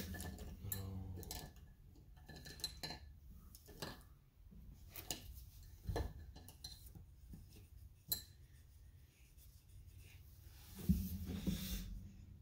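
Light clinks and taps of painting supplies being handled on a tabletop, with a few sharper knocks spread through and a louder stretch of handling near the end.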